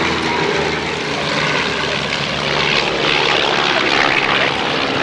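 Propeller-driven airplane engine running steadily, with a rush of noise that swells in the second half.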